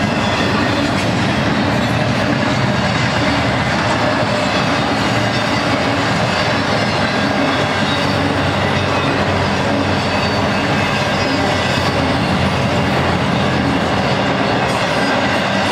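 BNSF intermodal freight cars loaded with highway trailers rolling past at close range: a steady, loud rumble of steel wheels running on the rails.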